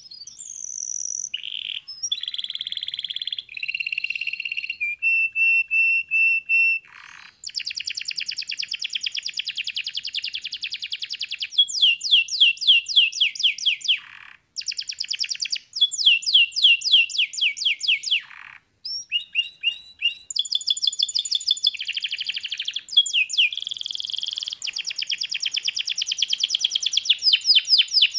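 Domestic canary singing a long, varied song: rapid trills of quickly repeated falling notes alternate with held whistled notes, broken by a few short pauses.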